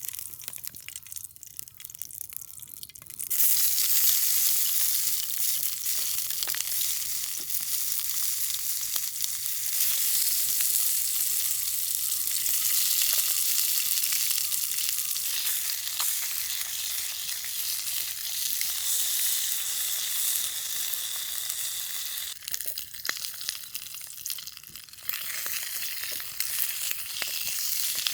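Food sizzling in a hot pan, a dense steady hiss with small crackles that starts about three seconds in, eases off briefly near the end and picks up again.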